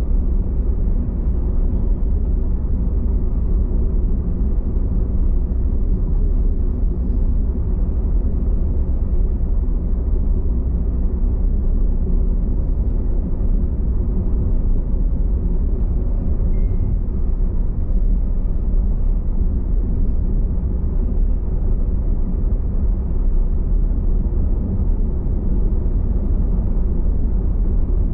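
Car driving at a steady pace: a continuous low rumble of engine and tyre road noise that holds an even level throughout.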